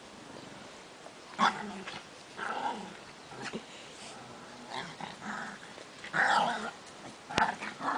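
A dog barking in short, irregular bursts with some growling, roughly once a second; the loudest barks come about a second and a half in and again about six seconds in. A sharp click sounds near the end.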